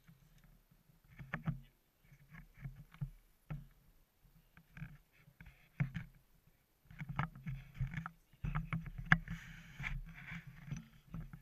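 Aboard a sportfishing boat: on-and-off low rumbling with a few sharp knocks, busier and louder in the second half.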